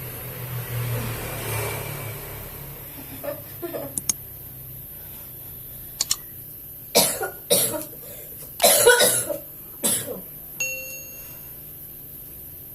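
A person coughing, a short fit of about four harsh coughs starting some seven seconds in: a patient with a cough and shortness of breath. A brief tone rings just after the coughs.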